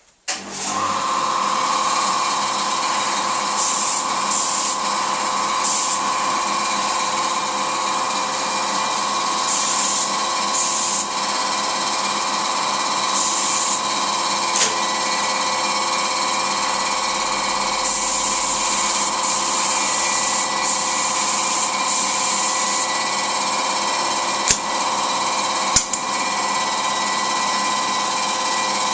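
Paint spray gun at work: an electric motor runs steadily with a constant hum while the gun hisses in several separate bursts as the trigger is pulled, the longest lasting several seconds in the second half.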